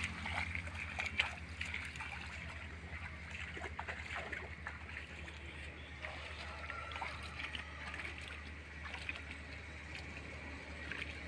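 Scattered splashing and sloshing of people wading and groping by hand in shallow muddy water, over a steady low hum.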